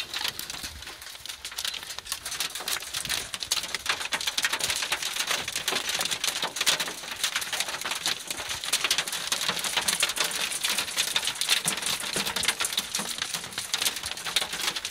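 Hailstones pelting a car's roof and windshield, heard from inside the car: a dense, fast clatter of countless small hits. It grows heavier about three seconds in.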